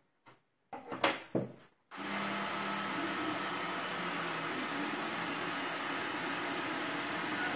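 A few short clicks and knocks in the first two seconds. Then, from about two seconds in, an Anycubic i3 Mega FDM 3D printer runs steadily mid-print: its cooling fans whir and its stepper motors move the print head, making an even mechanical hum with faint tones.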